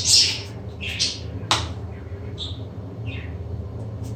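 Salt being shaken from a small plastic shaker into a bowl: a few short, gritty shakes spaced unevenly, with a sharp click about a second and a half in. A steady low hum runs underneath.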